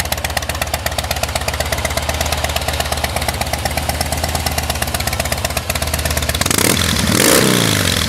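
2008 Harley-Davidson Softail Custom's fuel-injected 96-cubic-inch V-twin idling with a steady, even beat, then revved once near the end, its pitch rising and falling back to idle.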